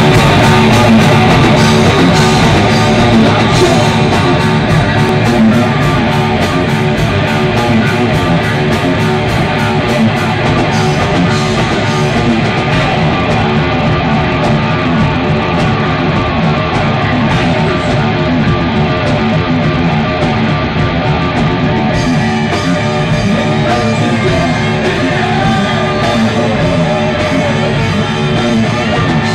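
Metal band playing live through a PA: distorted electric guitars and bass over a full drum kit, loud and dense throughout.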